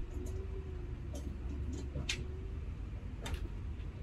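Low steady vehicle rumble heard from inside a pickup's cab, with a few light clicks about a second apart, the sharpest about two seconds in.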